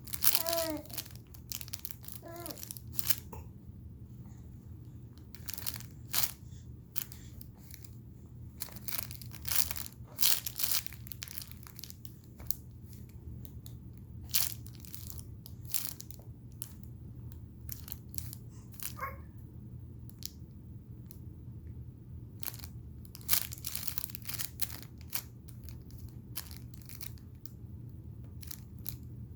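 Irregular crinkling and crackling of crinkly material being handled, over a steady low hum. A few short babbling sounds from a baby in the first three seconds, and one more about two-thirds of the way through.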